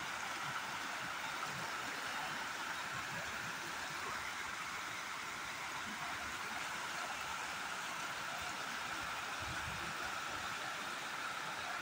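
Small river's water rushing and flowing steadily, an even hiss with no breaks.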